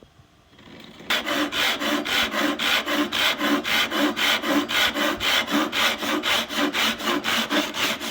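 Jorgensen 10-inch pull saw with a 0.5 mm thin blade sawing through wood in quick, even back-and-forth strokes, about four or five a second, starting about a second in.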